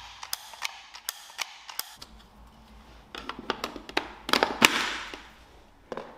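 Sharp clicks and knocks of a white plastic kitchen gadget being handled, fitted together and pressed down onto a silicone pastry mat: a string of taps, with the loudest knock about two-thirds through.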